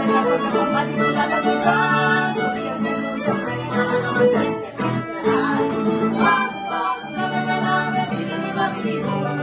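A small band playing instrumental music: a bowed string melody over plucked strings, with held notes and a brief drop in level about five seconds in.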